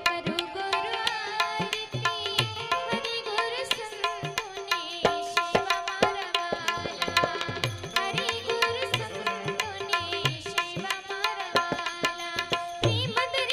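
Live Indian devotional music, probably an instrumental passage: a melody on an Indian banjo over a steady tabla rhythm, with the deep bass strokes of the tabla's larger drum.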